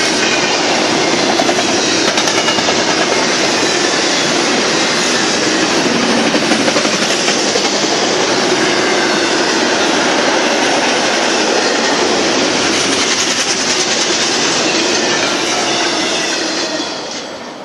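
Double-stack intermodal freight cars rolling past at speed: a steady loud rumble and rattle of steel wheels on rail, with faint high ringing tones through it. It fades away near the end.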